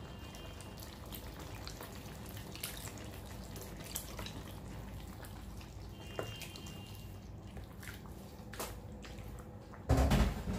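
Pork bubbling and sizzling in its own juices in a steel wok while a wooden spatula stirs it, with scattered clicks and scrapes. A short, louder burst of noise comes near the end.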